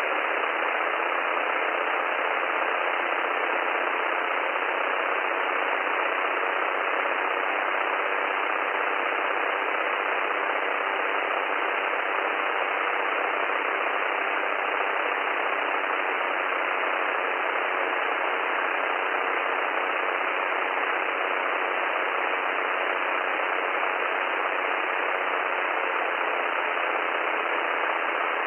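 Steady hiss from a light aircraft's radio and intercom audio feed, limited to a narrow telephone-like band with no bass or treble.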